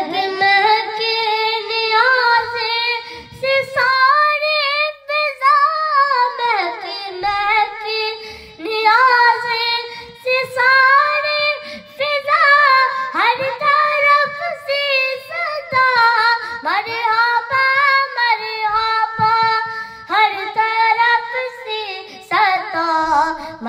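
A boy singing a naat solo without accompaniment, in long drawn-out notes that bend and slide between pitches.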